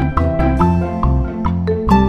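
Background music with a steady beat, a moving bass line and short, bright melody notes.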